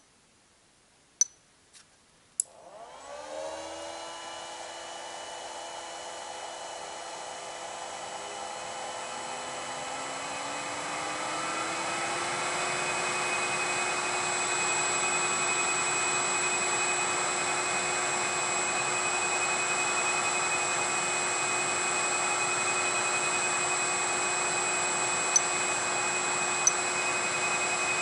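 A few sharp clicks, then a 208 V three-phase motor on a Siemens drive starts up. Its whine rises in pitch and grows louder for about ten seconds as it ramps up, then runs steadily with a high, even whine. There are two light clicks near the end.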